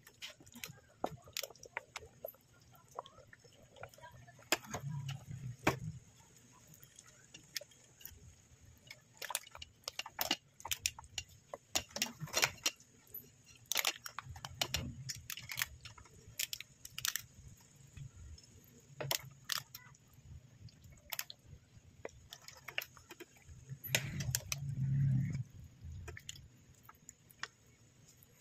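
A pot of spaghetti cooking in sauce: irregular small clicks and pops, with a few low dull thuds about 5, 15 and 25 seconds in.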